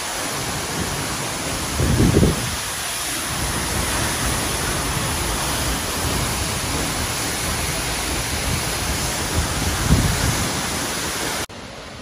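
Seljalandsfoss waterfall heard from behind the falling water: a loud, steady rush of water plunging into the pool, with two low buffets on the microphone about two seconds in and near the tenth second. Just before the end the rush drops sharply to a quieter, more distant sound.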